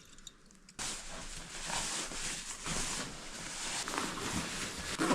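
Steady rushing of wind and blowing snow in a snowstorm, starting suddenly about a second in.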